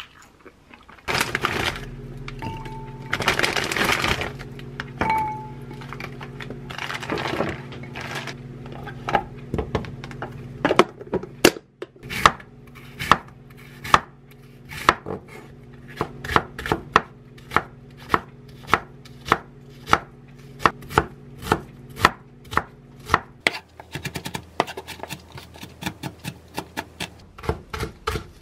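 A chef's knife chops an onion and then a green onion on a wooden cutting board, each stroke a sharp knock of the blade on the board. The knocks come about two a second and quicken near the end. Before them there are a few seconds of broad noisy sounds.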